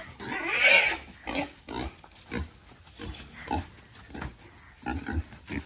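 A wild boar being caught gives a loud squeal in the first second, then short grunts about twice a second.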